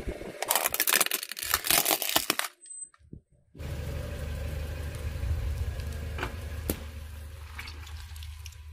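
A pink plastic toy sewing machine cracking and crunching under a car tyre for about two seconds. After a short break, a car's engine runs low and steady, with a few sharp clicks as the tyre rolls onto a bag of water beads.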